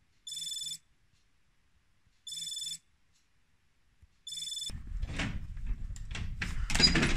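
Smartwatch alarm sounding three short bursts of rapid high beeps about two seconds apart. About two-thirds of the way in, handling noise and clicks take over, ending with the louder click of a door's lever handle and latch as a door is opened.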